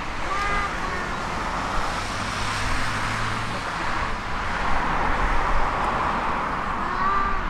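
Airbus A321neo's CFM LEAP-1A turbofan engines at takeoff thrust during the takeoff roll, heard from beside the runway as a steady rushing jet roar. The roar swells to its loudest about five seconds in as the airliner passes.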